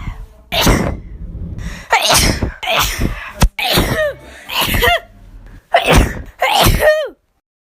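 A woman sneezing, about seven sneezes in quick succession. Each is a sharp burst, some ending in a falling voiced 'choo', and each is cut off abruptly.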